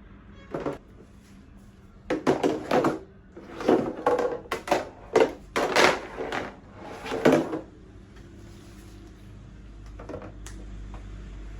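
High chair parts knocking and clattering as they are handled and fitted together: a run of quick, sharp knocks from about two to seven seconds in, with a single knock near the start and another near the end.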